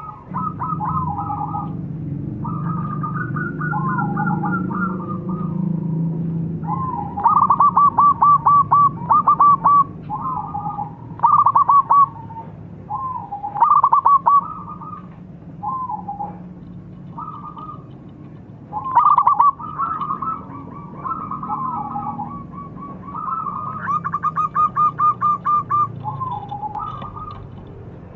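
Zebra dove (perkutut) cooing: phrase after phrase of quick, rippling staccato coos.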